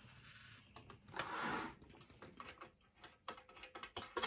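Small metal fittings being handled and tried together, giving scattered light clicks and taps, with a brief rustle a little over a second in and a few sharper clicks near the end.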